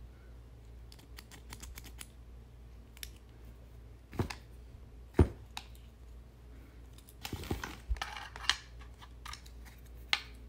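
Small brass pressure-washer quick-connect fittings being handled, with scattered clicks and taps of metal: a single sharp click about five seconds in, the loudest, and a quick run of clicks a couple of seconds later.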